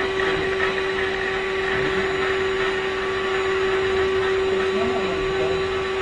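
Vacuum cleaner motor running steadily: a constant hum with an even rushing hiss over it.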